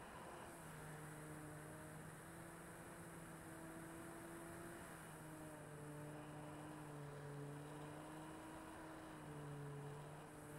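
Electric motor and propeller of a 4-cell RC Corsair F4U model plane in flight: a steady low hum whose pitch steps up and down a little as the throttle changes.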